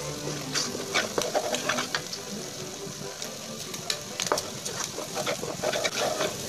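Wooden spatula stirring thick frying chilli sambal with petai belalang seeds in a nonstick wok: a gentle sizzle with scattered short scrapes of the spatula across the pan.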